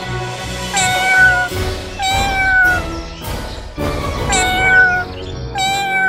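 A cat meowing four times over background music. Each meow is a short, high call that falls slightly in pitch as it ends.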